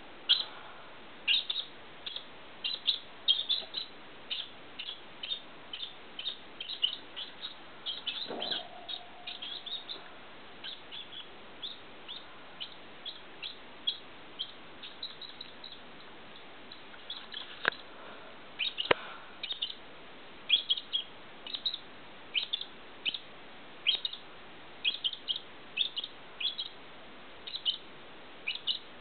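Many short, high-pitched chirps, each dropping slightly in pitch. They come irregularly, sometimes several a second, with a sparser stretch midway.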